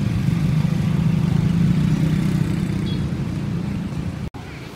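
A motor vehicle engine running close by, a steady low rumble. It cuts out for an instant about four seconds in and then goes on quieter.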